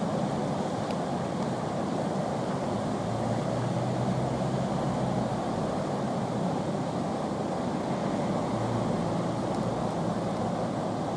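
Whitewater rushing and churning through a slalom course below a weir, a steady unbroken roar of foaming water.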